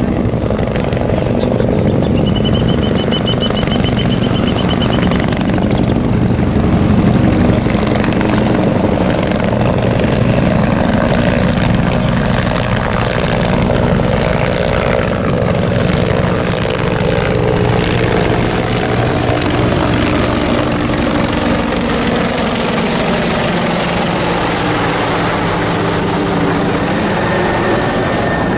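Several military helicopters, including a Bell 412EP and Hughes 500D light helicopters, flying overhead with a steady, continuous rotor beat and engine noise. The pitch drops slightly in the later part as they pass.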